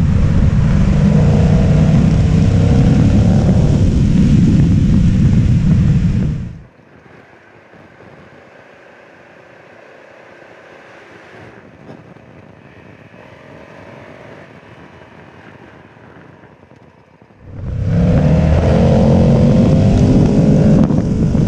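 Adventure motorcycle riding down a gravel road, with heavy wind rumble on the microphone over the engine note. About six seconds in, the wind rumble cuts away to a much quieter, muffled engine hum. It comes back loud about eighteen seconds in.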